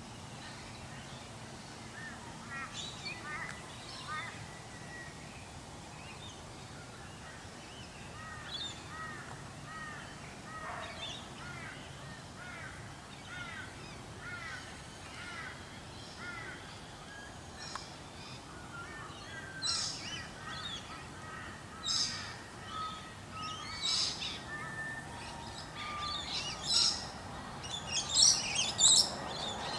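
Small birds chirping and calling. Through the middle there is a run of quick, evenly repeated notes, and over the last third come louder, sharper calls.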